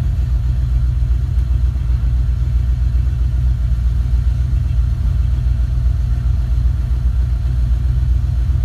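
Ford 351 Windsor V8 in a 1964 Mercury Montclair idling steadily with a deep, even rumble. It is still warming up after a −20 °C cold start, with the Holley Sniper EFI's idle air control holding the idle speed.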